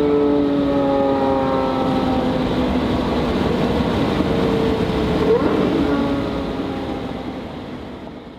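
A car engine running with road noise, its pitch sliding slowly down as the car eases off, then fading out near the end.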